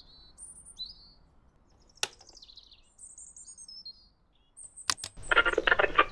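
Small birds chirping, with a single sharp click about two seconds in as the Sanyo Stereocast flip-clock radio's number cards turn over to the hour. Two quick clicks come just before five seconds, then music starts playing loudly from the clock radio.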